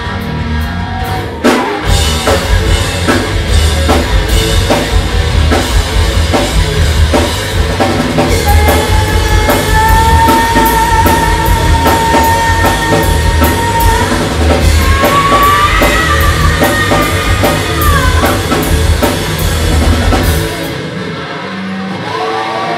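Live rock band playing loud and hard: drum kit, electric guitar and bass guitar, with a long held high note in the middle. Near the end the drums and bass stop, leaving a quieter ringing chord as the song finishes.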